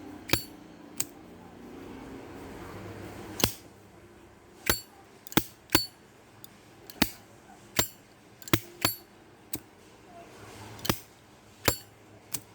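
A Zippo lighter's metal lid flicked open and snapped shut over and over: a string of about fourteen sharp metallic clicks, some with a brief high ring. It is the crisp, clean lid sound a good Zippo is prized for, called "very right" and "sharp".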